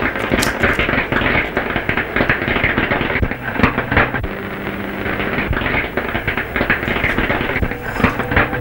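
Dense, continuous electrical crackling and sparking from laboratory radio apparatus, a film sound effect, with a faint low hum underneath.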